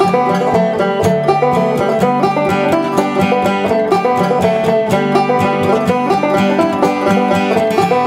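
An Ashthorpe banjo being fingerpicked, a steady stream of quick plucked notes ringing over a few held bass pitches.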